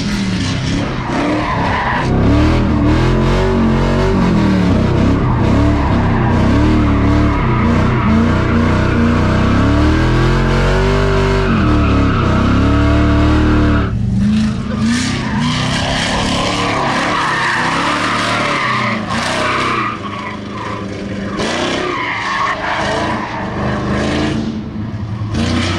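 Drift car being driven hard, its engine revving up and down again and again as the rear tires skid and squeal. About fourteen seconds in, the tire noise grows stronger.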